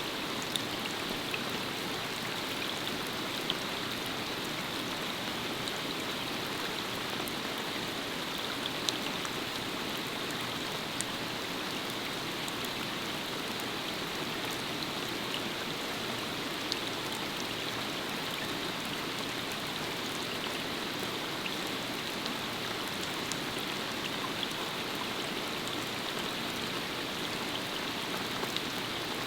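Steady rain falling and pattering on a surface, with scattered louder single drops.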